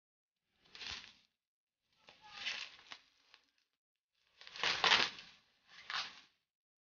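Bubble wrap and cardboard packing rustling and crinkling as they are handled and pulled apart, in four short bursts, the loudest about five seconds in.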